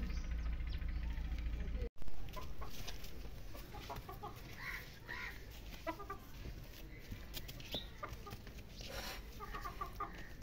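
Chickens clucking, a few short calls scattered through. For about the first two seconds a steady low rumble runs underneath, then cuts off abruptly.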